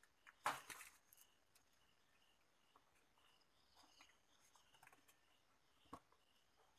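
Mostly quiet, with scattered faint clicks and scratches of hand work on a TV's circuit board and one louder short rustle about half a second in, then a sharper click near the end.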